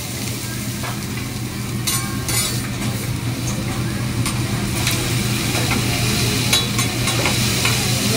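Mixed vegetables sizzling on a flat steel teppanyaki griddle, with a metal spatula scraping and clicking against the steel every second or so. A steady low hum runs beneath.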